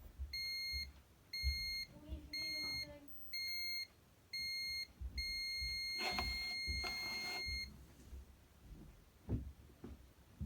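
Pyronix Enforcer alarm system's exit tone while it sets: a run of short high beeps, about one a second, then a long steady beep that cuts off about seven and a half seconds in as the system finishes full setting.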